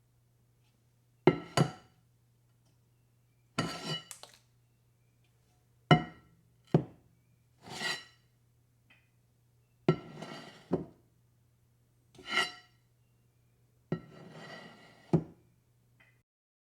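Large metal mixing bowl being handled and knocked: a series of clanks and short rattles, each ringing briefly with a metallic tone, coming every second or two, some drawn out into a brief scrape.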